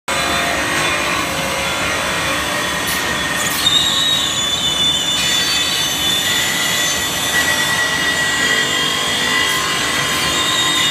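Ceramic tile dry-squaring machine running: a steady, loud mechanical din from its diamond squaring heads, motors and belt conveyor, with several high, steady whines over it. A couple of sharp clicks come about three seconds in.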